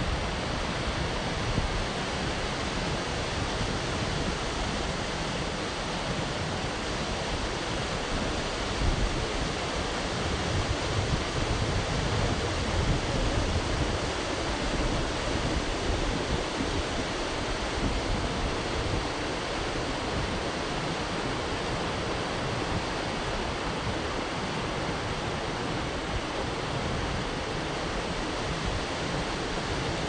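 A rocky mountain river rushing steadily, white water pouring and splashing over boulders.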